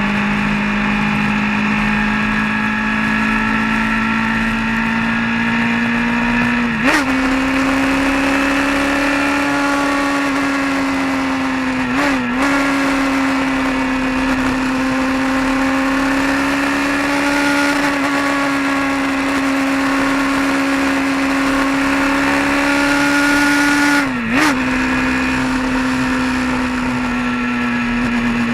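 Vehicle engine running steadily at cruising speed, over steady road and wind noise. Its note lifts slightly about a quarter of the way in, dips briefly three times, and settles a little lower near the end.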